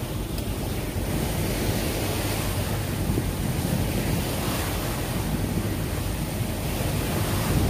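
Wind buffeting the microphone over a steady rush of water past a moving boat.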